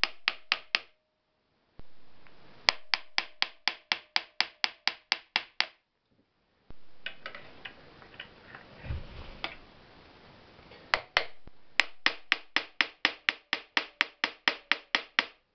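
Runs of quick, even metal taps, about five a second with a faint ring, on an electric motor's end cover that has not seated fully. Between the runs, rubbing and handling of the motor body.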